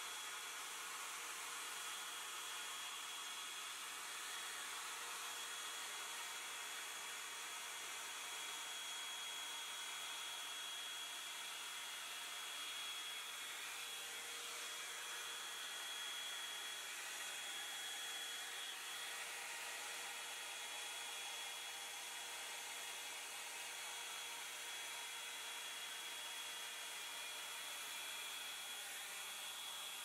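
Hot Tools Pro One Step Blowout hot-air brush running steadily on heat: an even rush of fan and air with a thin, steady high whine on top.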